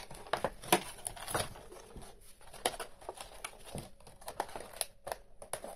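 Plastic and cardboard doll packaging crinkling and rustling as it is handled, with irregular short crackles and taps.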